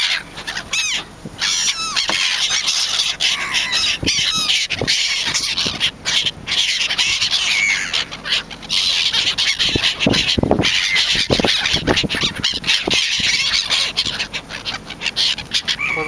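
A flock of gulls calling over and over, many short harsh calls overlapping into a continuous clamour, as the birds crowd in to be fed.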